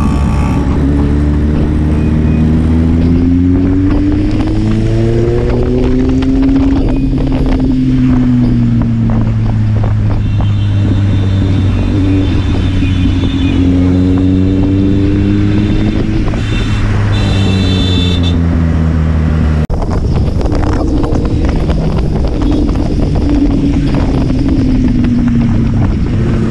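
Kawasaki Z800's inline-four engine running under way, its pitch climbing and falling several times as the bike accelerates and eases off, with wind rushing over the microphone. Short horn beeps from traffic come on and off in the middle, and the sound changes abruptly about three-quarters of the way through.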